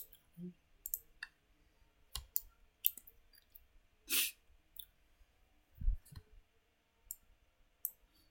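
Computer mouse clicking: a dozen or so sharp, irregularly spaced clicks, with a couple of soft low thumps among them.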